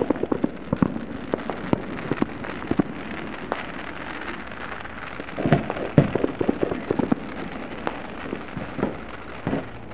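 Many scattered fireworks and firecrackers going off: irregular sharp pops and bangs, with a quick run of bangs a little past halfway.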